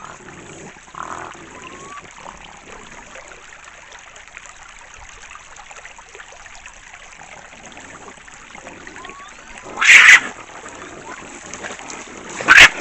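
Shallow creek trickling steadily under a raccoon standoff. Faint whining calls come in the first two seconds, and two brief, loud raccoon snarls break out about ten seconds in and again near the end.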